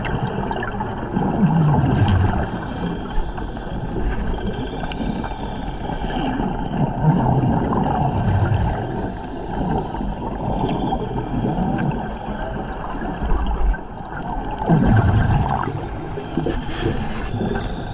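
Underwater gurgling and bubbling of a scuba diver's exhaled air, a steady rumble with a few louder surges as breaths are let out.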